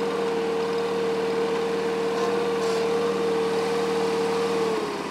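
John Deere 316 lawn tractor's 18-horsepower engine running as the tractor is driven, with a steady whine over the engine note. Near the end the whine drops in pitch and the sound gets slightly quieter.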